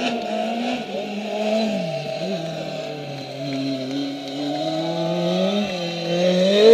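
Hillclimb race car engine at high revs. The pitch drops sharply about two seconds in as the driver lifts off, then climbs steadily under hard acceleration to its loudest near the end.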